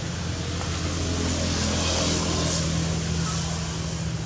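Steady low hum of a motor vehicle's engine over a background hiss, swelling a little toward the middle and easing off again.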